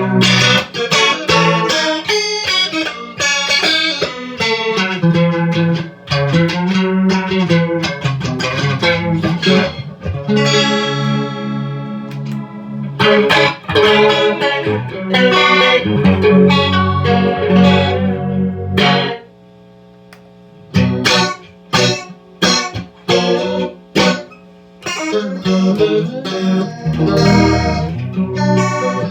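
Electric guitar with DiMarzio pickups played through a chorus effect with some distortion, running through picked notes and chords. About two-thirds of the way in the playing drops back to a few short, separated stabs before it picks up again.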